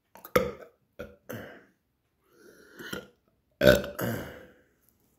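A man burping several times in a row, the loudest and longest burp near four seconds in.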